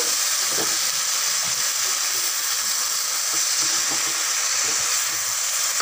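Chopped okra, tomato and capsicum sizzling steadily in mustard oil in a frying pan while being stirred.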